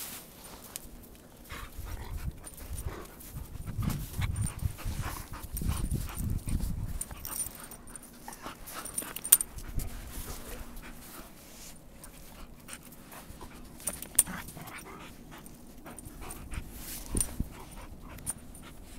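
Two dogs playing in snow: panting and scuffling, heaviest in the first several seconds, with two sharp clicks midway.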